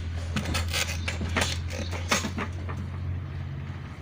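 Irregular metallic clicks and rattles over a steady low hum, the clicking busiest in the first two and a half seconds, cutting off abruptly at the end.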